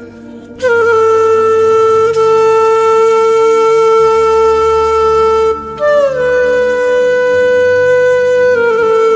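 Background music: a wind instrument, flute-like, holding long notes over a low drone. After a short break about two-thirds of the way through it takes up a higher held note, which steps down near the end.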